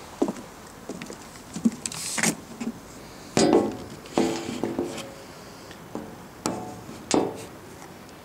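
Birds giving a few short, harsh calls, the loudest a little past the middle, with scattered light clicks and knocks between.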